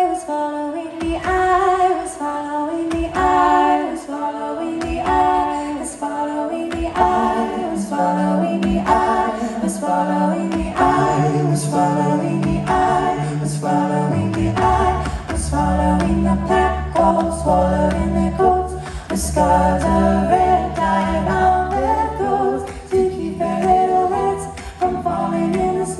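Five-voice a cappella group singing live in layered close harmony, with no instruments. A bass voice comes in about eleven seconds in and drops to a deep bass a few seconds later, filling out the chord.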